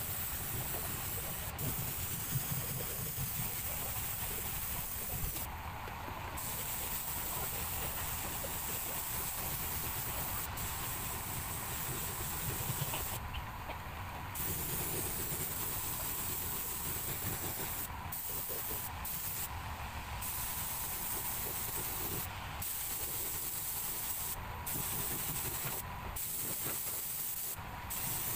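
Compressed-air gravity-feed spray gun hissing as it sprays paint in long passes. The hiss stops briefly about eight times where the trigger is let go.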